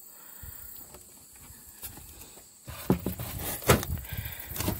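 Things being handled and moved about: quiet at first, then from about two and a half seconds in a low rustling with a few sharp knocks.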